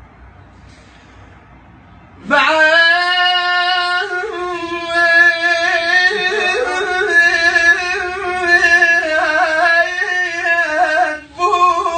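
A man's unaccompanied solo voice singing a long, ornamented wordless melisma in the style of an Iraqi Shia mourning lament, starting about two seconds in after a quiet pause. The held line wavers and turns in pitch, breaks off briefly near the end, then resumes.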